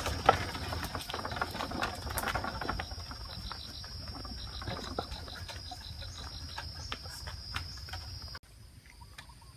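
A steady high insect drone, with a pulsing insect or bird call joining for a couple of seconds, over the occasional wooden knocks and creaks of a buffalo-drawn cart with large wooden spoked wheels rolling on a paved road. The drone cuts off suddenly near the end.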